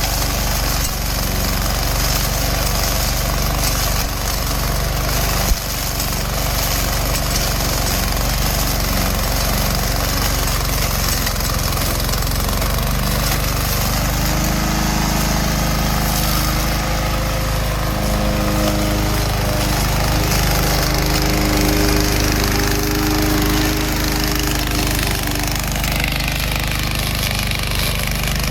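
Remote-control lawn mower running steadily, with a continuous low engine hum.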